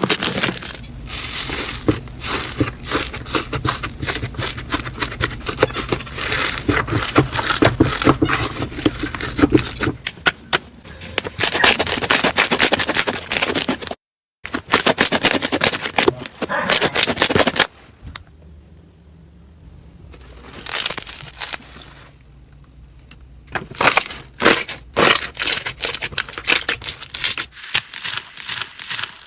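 Slime being squeezed, stretched and pressed by hand, giving dense runs of crackling and popping clicks. The sound cuts out for a moment about halfway through, then continues more sparsely.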